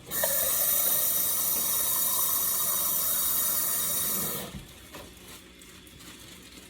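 Kitchen faucet turned on, water running steadily for about four seconds, then shut off.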